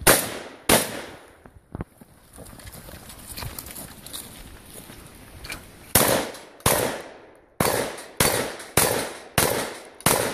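Shotgun fired twice in quick succession, then after a pause of about four seconds a fast string of about seven shots, a little over half a second apart, each trailing off in a short echo.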